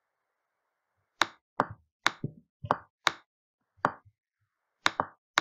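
Sharp clicks from someone working a computer: about ten single taps, irregularly spaced, starting about a second in.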